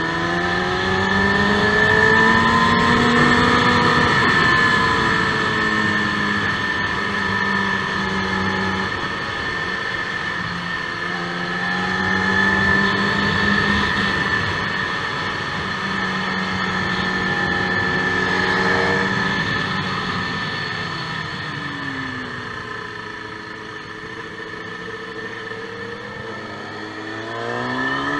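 KTM motorcycle engine under track riding, revving up through the gears and easing off into corners. The pitch climbs over the first few seconds, rises and falls through the middle, drops lower for a stretch and climbs again near the end.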